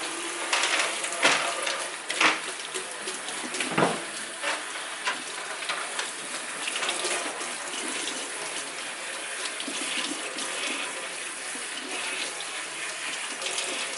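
Warm tap water running steadily over hair being rinsed in a sink, with a few short knocks in the first four seconds.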